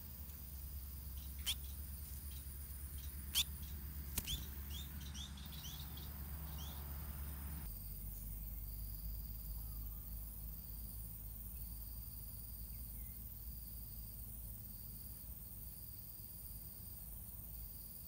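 White-rumped munias chirping at the nest: three sharp high chirps in the first few seconds, then a quick run of short chirps. About halfway through these stop abruptly, leaving a faint low hum with a faint pulsing high tone.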